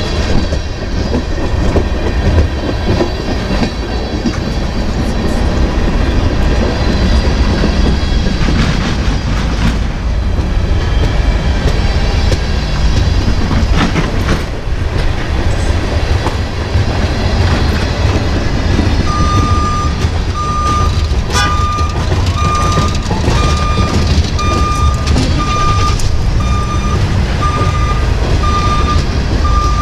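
Freight train of tank cars and boxcars rolling past close by: a steady heavy rumble of wheels on rail with occasional sharp clanks. About two-thirds of the way in, a steady beeping starts, roughly one and a half beeps a second, and keeps on.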